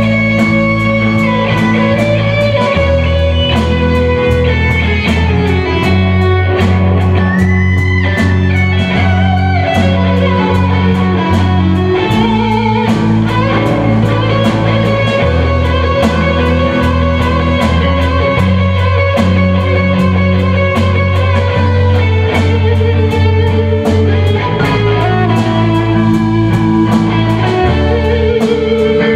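Live rock band playing an instrumental passage with no singing: an electric lead guitar plays melody lines, bending a note upward about a third of the way through, over held electric bass notes, rhythm guitar and a steady drum kit beat.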